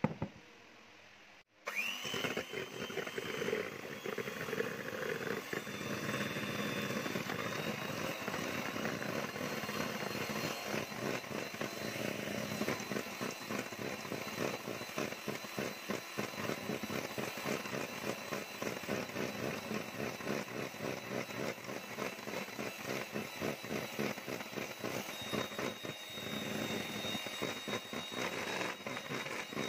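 Electric hand mixer starting up about two seconds in and then running steadily, its beaters whipping egg whites into meringue in a stainless steel bowl, with a fast, even rattle of the beaters against the bowl.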